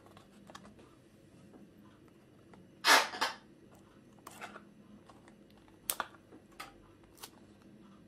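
Small cardboard box being sealed by hand with a thin strip of adhesive tape: a short, loud rasp about three seconds in, then a few light taps and crinkles as the box is handled.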